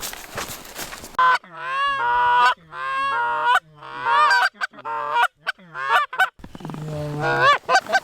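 About a second of rustling, then a fast, loud series of Canada goose honks and clucks, each a short note that rises and breaks, repeated with brief gaps to the end.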